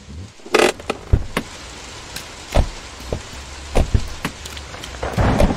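Steady rain, with a handful of irregular knocks and thumps of taxi doors and luggage being handled as the car is unloaded; a louder rough rumble sets in near the end.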